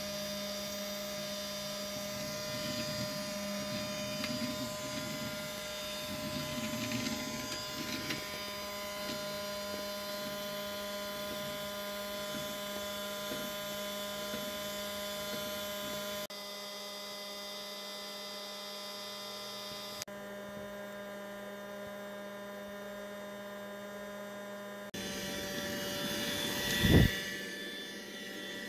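Cheap toy-style robot vacuum running: a steady small-motor hum and whine, shifting abruptly in level a few times. Near the end there is one loud knock.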